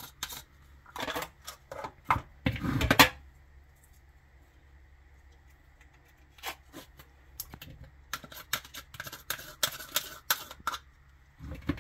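A spoon scraping applesauce out of small plastic cups and tapping against a glass mixing bowl: a quick run of scrapes and taps with a louder one about three seconds in, a lull, then more scattered taps and scrapes.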